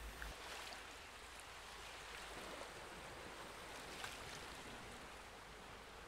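Faint steady hiss, close to silence, with no distinct sound in it.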